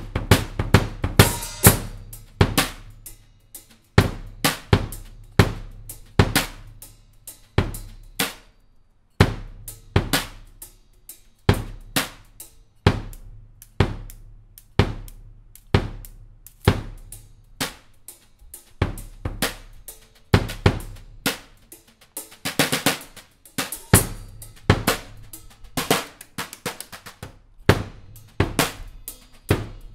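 Drum kit being played with a 22x8-inch all-maple pancake bass drum, its kick thumps running under steady snare hits in a groove that pauses briefly about eight seconds in. A cymbal crash near the start and again about two-thirds of the way through.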